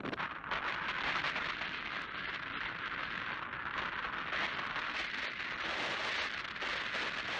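Steady rushing hiss of wind and sea-wash on an offshore rock.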